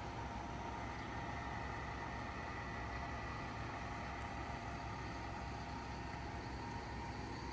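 Steady mechanical hum over an even hiss, with a few faint held tones and no change in level.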